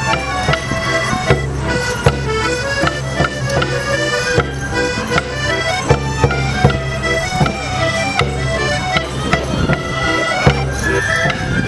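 A traditional border morris dance tune played on a squeezebox, a stepping melody over a steady bass, with frequent sharp knocks on the beat.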